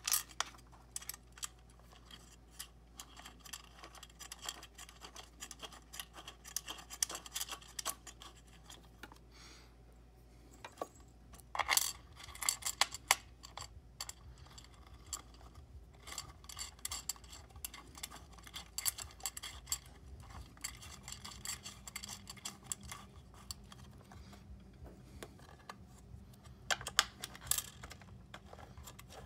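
Small metal clicks and rattles of bolts, washers and nuts being handled and threaded by hand into a metal antenna mounting bracket, coming in scattered clusters, with the loudest clicks about twelve seconds in and again near the end.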